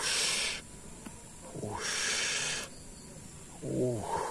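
A person breathing hard in three hissing breaths, each led by a short low grunt-like sound, while straining against a hooked eel.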